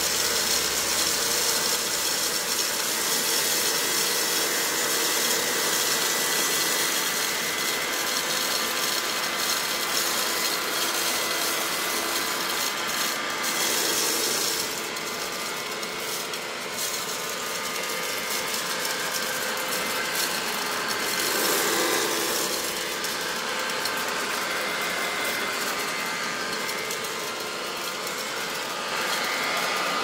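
1954 Vactric R45 upright vacuum cleaner running steadily with a high motor whine over a dense rush of air, as it sucks up rice grains from a carpet.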